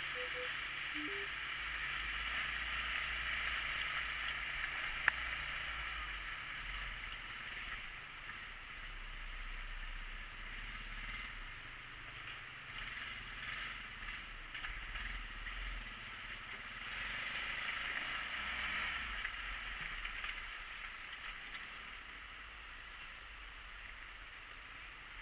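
Side-by-side off-road vehicle running on a trail, its engine and drivetrain noise swelling and easing every few seconds, with a low rumble underneath and one brief click about five seconds in.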